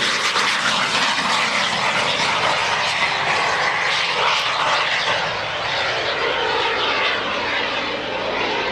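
Small single-seat jet's turbojet engine running at takeoff power as the jet rolls down the runway, lifts off and climbs away: a steady jet hiss that fades a little about five seconds in.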